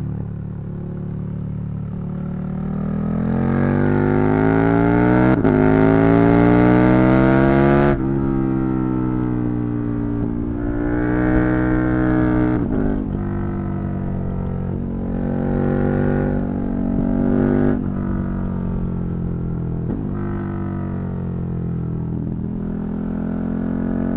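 KTM 1290 Super Duke R's V-twin engine under way, climbing steadily in pitch for several seconds and then dropping abruptly about eight seconds in. After that the revs rise and fall again and again, with further sudden drops.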